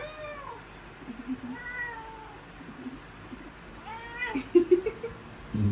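Domestic cat meowing three times, each meow rising then falling in pitch. A few sharp knocks come about four and a half seconds in.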